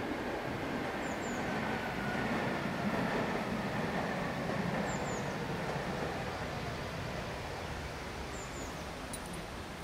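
Tatra KT8D5 articulated tram running in along the track, a steady rumble of wheels on rails with a faint whine. It grows louder as it nears, then eases off as it slows for the stop.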